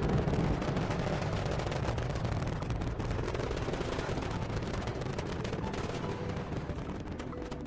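Rocket launch sound effect: a dense, crackling rumble of rocket engines that slowly fades.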